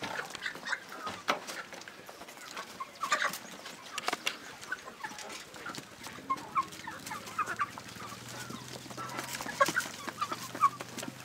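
A flock of domestic chickens clucking and calling as they crowd out of a coop door, with scattered sharp knocks and scuffs among the calls. A low steady hum comes in underneath about halfway through.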